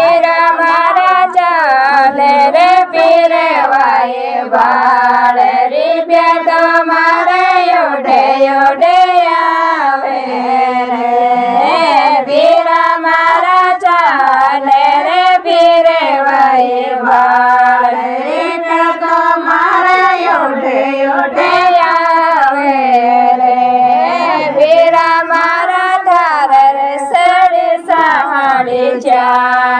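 A group of women singing a Marwari folk song together in one melodic line, with handclaps keeping time.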